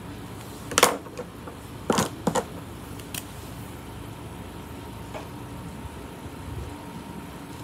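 Air conditioner running steadily in the room, with a few sharp clicks and taps from markers being picked up and handled, the loudest about a second and two seconds in.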